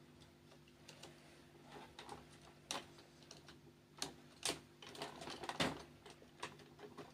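Scattered clicks and light knocks of plastic and metal parts being handled and fitted on a laser-printer fuser assembly, a few sharper ones in the middle, over a low steady hum.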